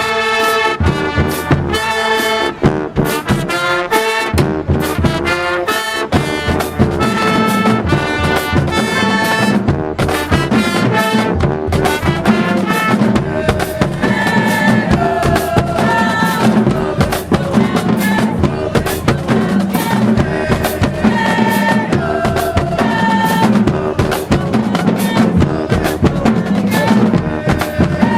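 High school marching band playing in the stands: trumpets and trombones over drums. The brass plays short, separate notes for the first dozen seconds or so, then moves to longer held notes over a low, full bottom, with the drums keeping a steady beat.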